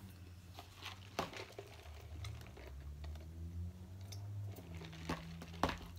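Sipping through a straw from a plastic fast-food cup, with a few sharp small clicks, two about a second in and two near the end, over a steady low hum.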